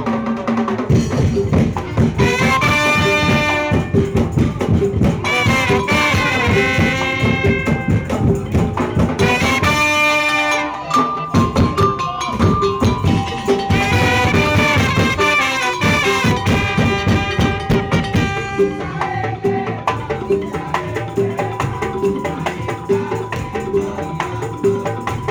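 Madurese daul (tong-tong) music: a percussion ensemble of drums and struck tong-tong plays a steady, even beat. A pitched melody line with bending notes sits over the percussion.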